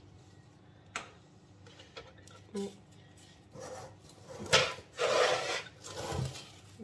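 A few knocks and bumps of things set down on a countertop, then loud rustling of plastic cling film around a chilled cake in its tin as it is handled.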